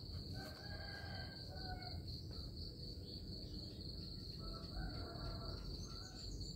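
Insects chirring in the background: a steady, unbroken high-pitched trill, over a faint low rumble.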